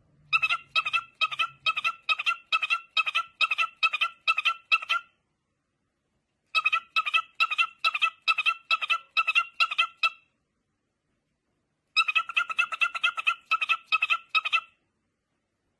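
Cockatiel giving quick, evenly repeated chirps of one pitch, about three a second, in three runs of a few seconds each with short pauses between.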